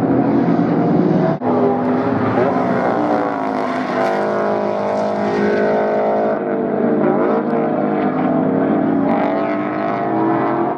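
Improved Production race car engines at racing speed, their notes climbing and dropping with throttle and gear changes as cars pass, with a brief sharp break about a second and a half in.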